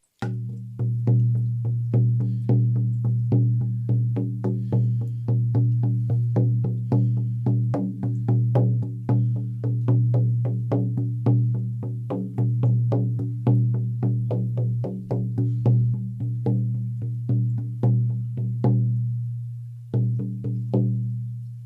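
14-inch buffalo skin frame drum on an ash frame, beaten steadily with a firm beater at about two to three beats a second, its deep tone ringing on between strokes. The beating stops near the end with a final couple of strokes, and the drum rings out.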